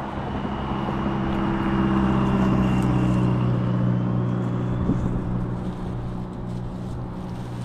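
A motor vehicle going by, its low engine hum growing louder to a peak a few seconds in, then slowly fading, with a faint high whine while it is closest.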